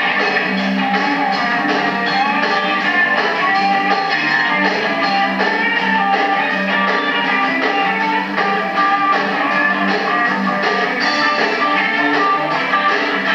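Live blues-rock band playing: an electric guitar over a drum kit keeping a steady beat. The sound is dull at the top, as from a 1990s camcorder recording.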